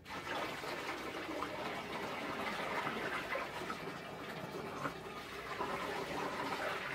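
Warm water poured from a plastic jug through a wide funnel into a FermZilla plastic conical fermenter: a steady pour that begins at the start and stops at the very end.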